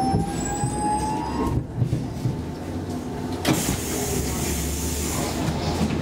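Stockholm metro C14 train heard from inside the car as it comes to a stop at a platform, with a low running hum throughout. In the first second and a half there is a rising electric whine, and about three and a half seconds in a sudden burst of compressed-air hiss lasts about two seconds.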